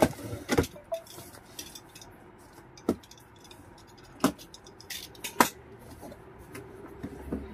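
Cardboard box being opened: packing tape slit with a blade and pulled away, and the flaps folded back. It comes as a few sharp clicks and knocks over light rustling, the loudest about five and a half seconds in.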